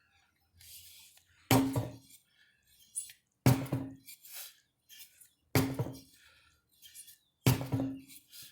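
A 25 lb sledgehammer striking heavy blows, four hits about two seconds apart, each leaving a short low ring, with faint knocks in between.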